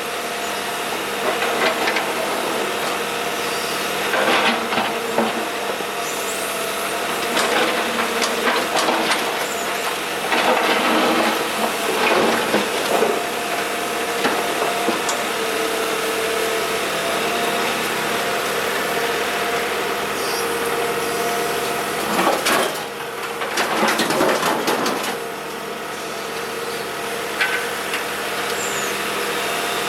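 A Kobelco SK125W wheeled hydraulic excavator's diesel engine runs steadily while it works broken asphalt. Several bursts of scraping and clattering rubble come through, the loudest a little past two thirds of the way through.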